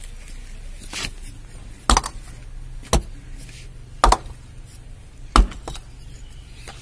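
Halved clay bricks being dropped into a dug soak pit, five knocks about one a second as each piece lands, filling the pit's bottom layer.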